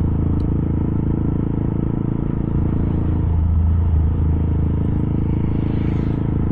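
Small 125 cc single-cylinder Honda motorcycle engine running steadily while riding at an even cruising pace, heard from the rider's own bike.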